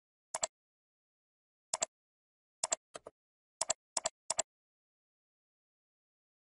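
Computer mouse button clicks, each a quick press and release: seven in all, spread over the first four and a half seconds, one of them fainter.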